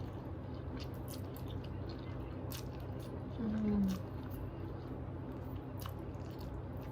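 Close-up mouth sounds of a person eating spicy noodles: chewing with small wet smacks and clicks. About halfway through comes a short low hum with falling pitch.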